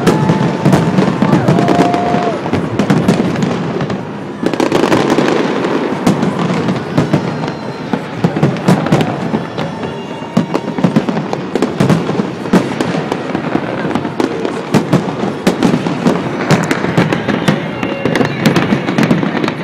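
Fireworks display: aerial shells bursting in a rapid, continuous run of bangs and crackles, with a short let-up about four seconds in.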